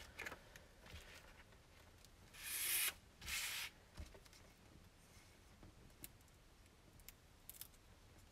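Cardstock and transparent paper rustling and sliding as the page is handled, in two short swishes about two and three seconds in, followed by a few faint light ticks.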